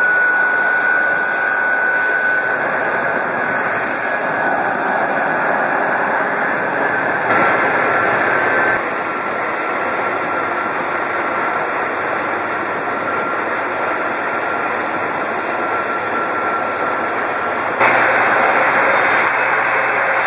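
Boeing 747-400's Rolls-Royce RB211 turbofans running at taxi power as the airliner taxis: a steady jet whine over a dense hiss. The sound changes abruptly twice, about seven seconds in and near the end.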